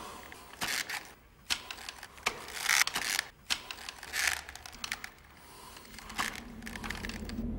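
Wooden rungs and ropes of a hanging rope ladder knocking, creaking and rustling irregularly as a climber pulls himself up it hand over hand, with sharp clacks and short scuffing noises. A low hum rises near the end.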